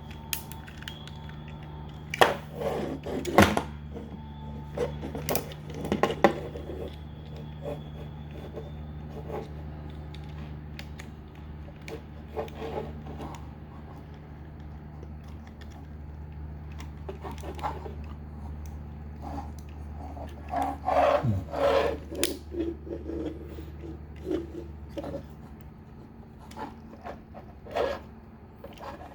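Plastic toy robot figure and its weapon accessory being handled: scattered clicks, taps and rubbing of hard plastic parts as a gun is fitted into the figure's hand. The loudest clusters come a couple of seconds in and again about two-thirds through, over a steady low hum.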